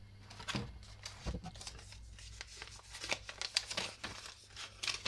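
Packaging crinkling and rustling as it is handled, with irregular clicks and crackles throughout.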